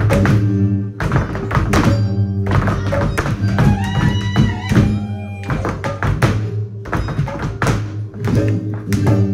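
Live flamenco music: hard-soled dance shoes striking the stage in fast footwork, with cajón hits, over steady low sustained notes. A bending melodic line comes in about four seconds in.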